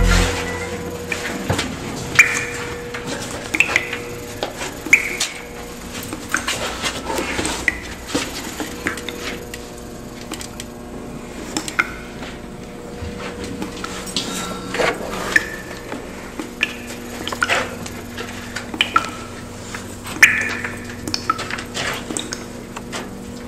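Tense sound-effects track: a steady low hum under scattered sharp knocks and short high squeaks.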